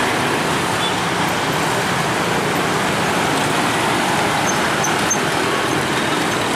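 Dense, slow-moving street traffic close by: a steady din of many small motor scooters, cars and bajaj auto-rickshaws running as they cross the railway tracks.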